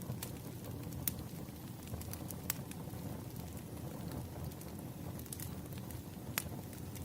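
Campfire crackling: a steady low rush of burning wood with sharp pops scattered through it, about half a dozen in all.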